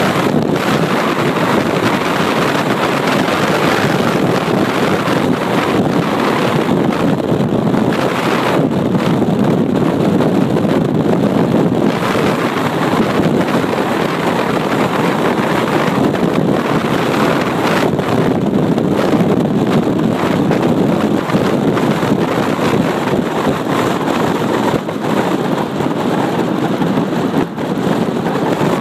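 Wind rushing over the microphone from a moving car, mixed with its tyre and road noise: a loud, steady rush with no breaks.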